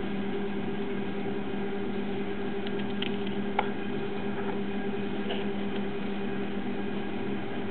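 Steady drone of a ship's machinery heard inside a cabin, a constant hum with an even rushing noise, broken by a few short faint clicks around three to three and a half seconds in and again near five seconds.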